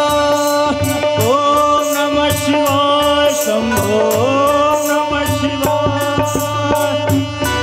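Live Hindu devotional bhajan music: harmonium notes over a steady tabla rhythm, with a voice sliding between notes in the first half.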